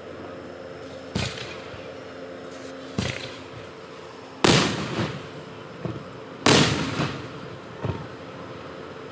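Aerial fireworks going off: about six sharp booms at uneven intervals, each trailing off in a short echoing rumble. The two loudest come about halfway and two-thirds of the way through.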